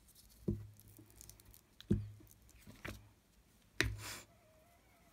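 Four light taps and thuds on a craft tabletop as paper scraps are handled and pressed down for a collage, with a short paper rustle right after the last tap.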